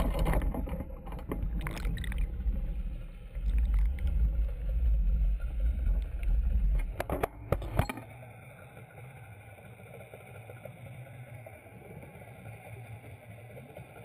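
Water rushing and splashing over a deep rumble, with a few sharp splashes, for about eight seconds. It then cuts to a quieter, steady underwater hum.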